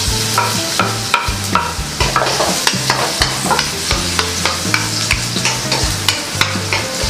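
Minced garlic sizzling in hot oil in a steel wok, stirred with a spatula that scrapes and knocks against the pan many times in quick succession.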